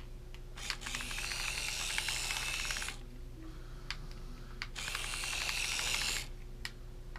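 WowWee Miposaur RC Mini toy robot's small electric drive motor and plastic gears whirring as it drives, in two runs of about two seconds each with a short pause between.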